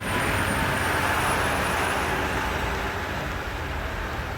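Street traffic noise: an even rush of road noise from passing vehicles, loudest at the start and easing off slowly.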